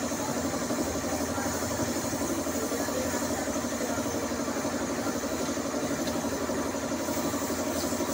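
Air compressor running steadily with a fast, even pulse, under the hiss of a gravity-feed paint spray gun spraying a car bumper.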